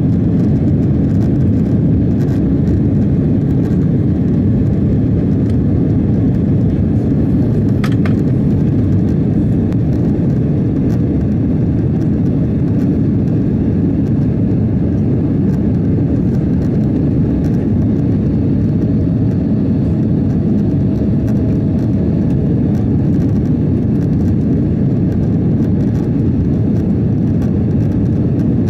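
Steady low rumble of a Boeing 767-400's twin engines and airflow heard inside the passenger cabin, holding at an even level throughout, with one faint click about eight seconds in.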